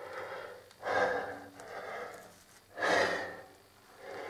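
A person breathing in and out, a series of soft breaths about a second apart.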